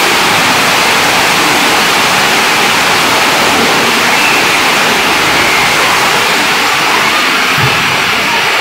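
Heavy rain falling on a roof, a steady loud hiss.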